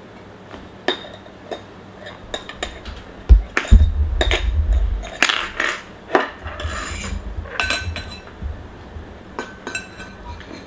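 Eating utensils clicking and clinking against a bowl or plate while noodles are eaten, with a heavy low thump and rumble about three seconds in.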